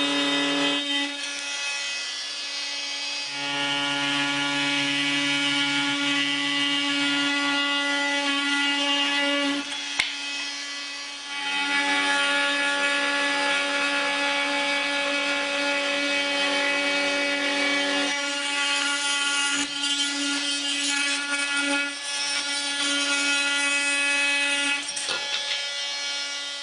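Bosch GOP 250 CE corded oscillating multi-tool running with its blade working into material: a steady whine over a rasping cut that shifts in pitch and strength several times as the load changes.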